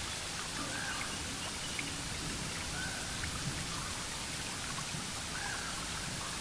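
Steady rain-like hiss, with a few faint short chirps over it.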